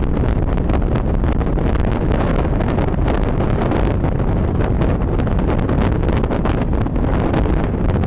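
Waterfall: a loud, steady rush of falling water with a dense crackle of spray.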